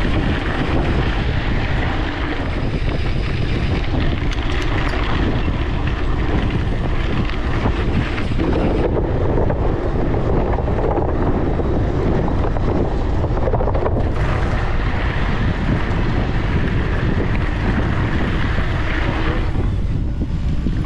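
Steady, loud wind buffeting on a GoPro action camera's microphone while cycling at speed, mixed with bicycle tyre and road rumble.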